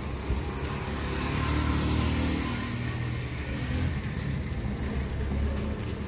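Motor vehicle driving: steady engine hum under road noise, swelling louder about two seconds in.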